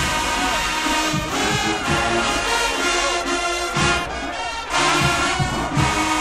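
College marching band playing: brass horns sounding sustained chords over drum hits.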